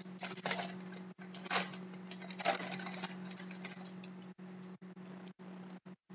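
Shiny wrapper of a 2013-14 Upper Deck Series 1 hockey card pack being torn open and the cards handled, with irregular crinkling and rustling over the first three seconds, then quieter handling. A steady low hum runs underneath.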